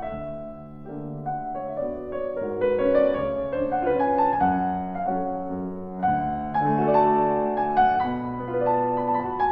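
Solo piano playing a mazurka: a melody over chordal accompaniment. It dips quiet about a second in, then grows fuller and louder.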